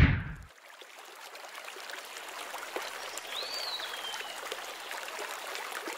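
Running water of a creek, a steady rushing that swells over the first few seconds, with a single bird whistle rising and then falling in pitch about three seconds in. A deep boom dies away in the first half second.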